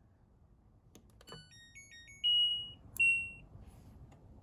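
Washing machine control panel beeping as its buttons are pressed: a click, a quick run of short beeps at changing pitches, then two longer beeps, each just after a click.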